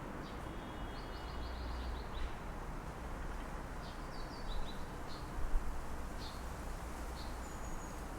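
Small birds chirping in short high calls, with a quick trill about a second in, over a steady low rumble of distant city traffic.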